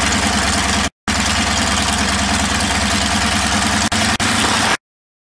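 Rotec radial engine of a Nieuport 28 replica biplane running steadily on the ground with its propeller turning: a loud, even drone under a strong rushing hiss. The sound drops out for an instant about a second in and cuts off abruptly near the end.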